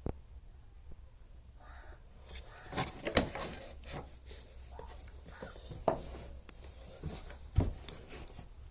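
Irregular clicks, taps and rubbing from small parts and wires being handled on a workbench, with the louder knocks about three seconds in, near six seconds and near the end, over a low steady hum.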